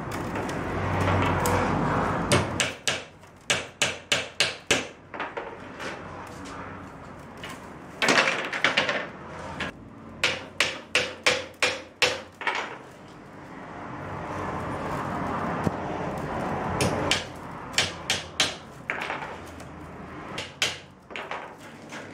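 Willow rods rustling and scraping as they are woven through the sides of a willow basket, broken by three runs of sharp wooden knocks, about four a second.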